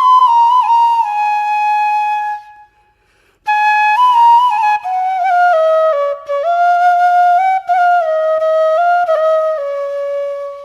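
Background music: a solo flute-like melody, one line of sustained, sliding notes. It breaks off for about a second roughly three seconds in, then resumes.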